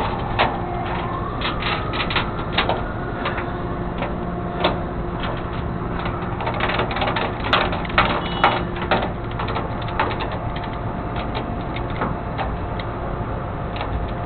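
A vehicle engine runs steadily under frequent irregular clicks and rattles. A siren wails through the first two seconds, its pitch falling and then rising.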